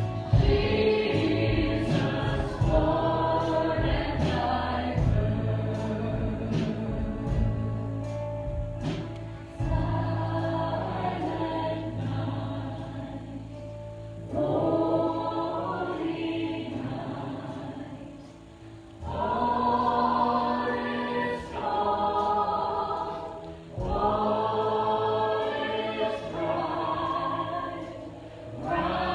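Christian worship music: several voices singing together in phrases over a sustained low instrumental bass.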